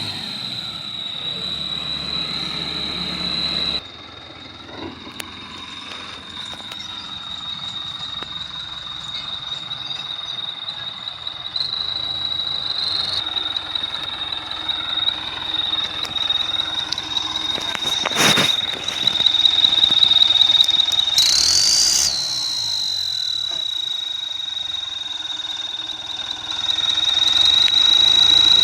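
Aftermarket turbo-whistle device on a tractor whistling at one steady high pitch over the running engine. The whistle rises briefly in pitch twice, about halfway through and again near three-quarters of the way, and a single knock is heard about two-thirds of the way through.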